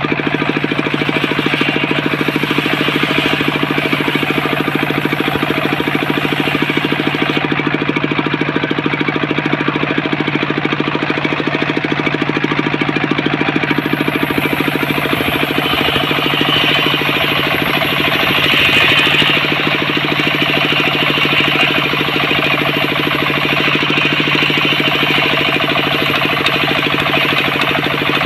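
Homemade engine-driven circular saw rig running steadily, its engine giving a fast, even knocking beat under a steady hum. The sound grows a little brighter and louder a little past the middle.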